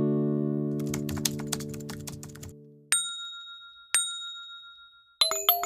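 Outro music: a strummed guitar chord dies away under a run of light clicks, then two single bright bell dings about a second apart, and a quick cluster of chime notes near the end.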